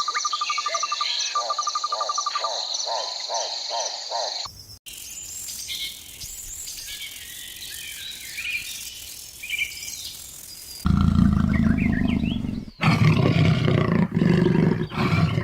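A series of separate animal sound clips: a fast run of repeated short calls, about four a second, over a steady high tone; then quieter bird chirps; then, about eleven seconds in, a loud deep roar.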